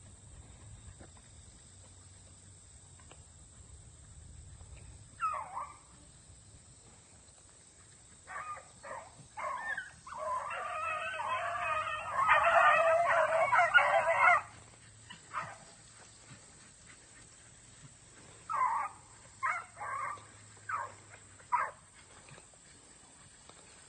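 Young rabbit-hunting dogs barking on a rabbit's trail. A single bark comes first, then scattered barks build into several dogs giving tongue together for about four seconds, the loudest part. A few separate barks follow near the end.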